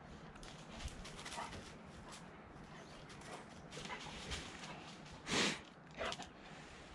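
A dog moving over dry leaf litter and brush, its paws crunching and rustling the leaves in scattered crackles. A short, louder noisy burst comes about five and a half seconds in, with a smaller one just after.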